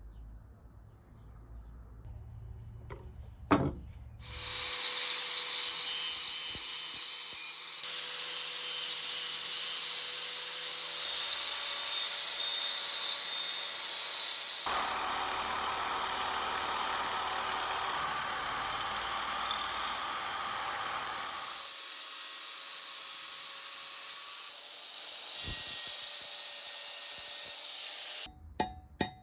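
A power tool working on rusty metal: a steady whirring, scraping noise that changes character every few seconds, after a single sharp knock about three seconds in.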